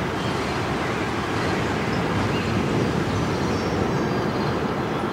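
Ambient electronic music played live on synthesizers: a dense, steady rumbling drone with no clear melody.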